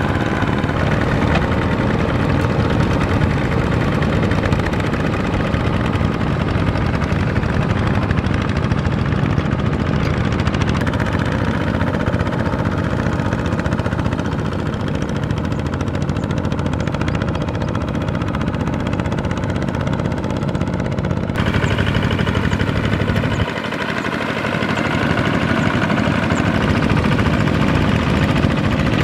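Kubota ZT-series walking tractor's single-cylinder diesel engine running steadily under load as its cage wheels churn through a flooded rice paddy, the tone shifting abruptly a few times.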